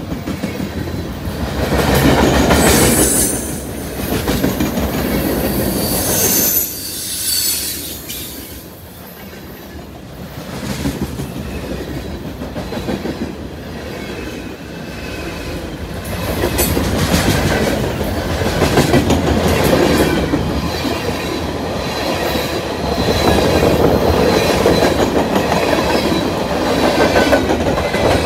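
Freight cars of a long freight train, boxcars and open hoppers, rolling past close at speed. Steel wheels rumble and clatter over the rail, the level swelling and dipping as the cars go by. Brief high-pitched wheel squeals come through several times.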